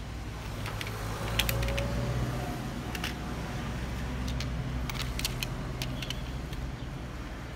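Sharp clicks and light taps of die-cast metal toy cars being handled and set down on a tabletop, with small clusters of clicks about a second and a half in and again around five seconds, over a steady low hum.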